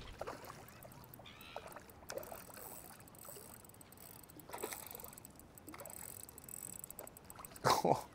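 Faint sloshing and splashing of shallow water as a hooked fish is played near the edge, with scattered small clicks and a brief louder sound near the end.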